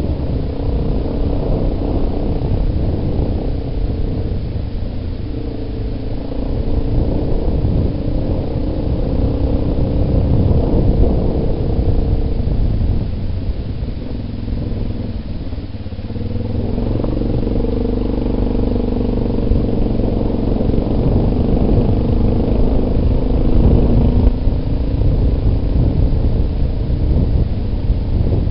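Yamaha Big Bear ATV's single-cylinder four-stroke engine running as the quad rides along a dirt trail. The engine eases off about halfway through, then picks up again.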